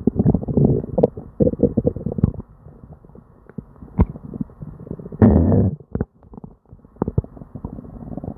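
Human stomach and bowel gurgling during a bout of diarrhea: dense bubbling and popping for the first two seconds, then quieter scattered pops. A louder gurgle comes about five seconds in.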